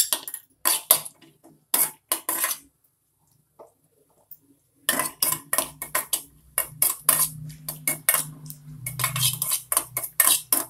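Cashews dropping into a steel kadai, then a spoon clicking and scraping against the pan as they are stirred in ghee. A few knocks in the first couple of seconds, a pause, then quick, busy stirring from about five seconds in.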